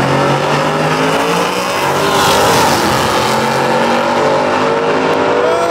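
Two supercharged Dodge V8 muscle cars launching off the line at full throttle, their engine note climbing steadily in pitch as they accelerate away down the drag strip.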